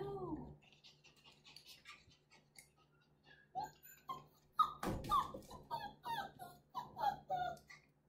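Australian Shepherd puppy whining and yipping in short rising-and-falling cries, one drawn-out cry at the start and a run of quick ones in the second half, with a single thump about five seconds in.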